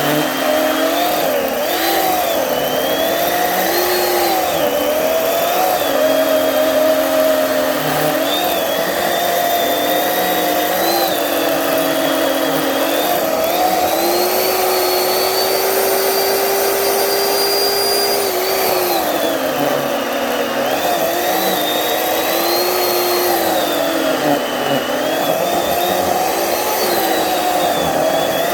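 Poulan Pro electric chainsaw running continuously while cutting wood, its motor pitch sagging and recovering again and again under load, and holding steadier and higher for a few seconds about halfway through. The chain is mounted backwards, so the saw cuts poorly.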